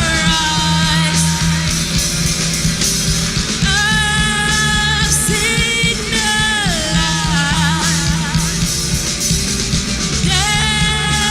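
Rock band playing, with a lead vocalist singing long held notes over it.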